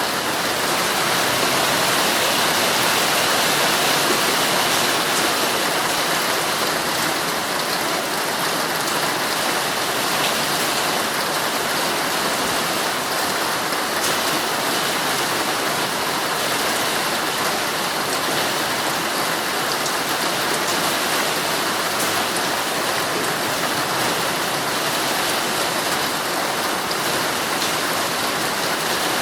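Heavy rain pattering steadily on a tent's fabric, a dense even hiss with faint scattered drop ticks.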